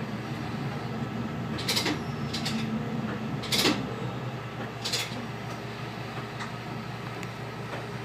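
Diesel railcar running low and steady as it slows to a stop at a station, with four short sharp hisses, the loudest about three and a half seconds in.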